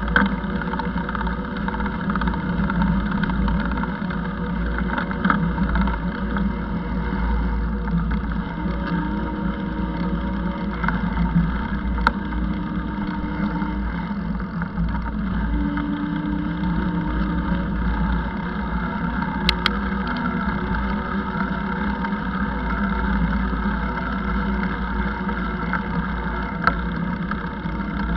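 Steady wind and rolling rumble on an action camera travelling along a paved bike path, with a couple of brief clicks partway through.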